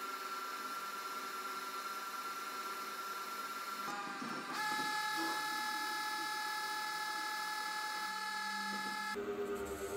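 Metal lathe spindle whining steadily as it bores the centre of an iron dumbbell plate. The pitch jumps higher about halfway through, and near the end it gives way to a lower, pulsing tone.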